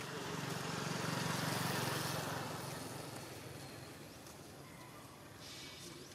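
A motor vehicle passing: its engine and road noise swell to a peak about two seconds in, then fade away.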